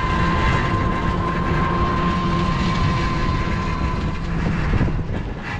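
Ride in an electric rickshaw (tuktuki) on a village road: the steady whine of its motor over the low rumble of the ride. The whine fades near the end.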